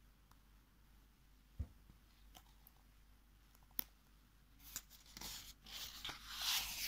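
Faint rustle of a paper book page being handled and turned, building over the last couple of seconds. A few soft clicks come earlier.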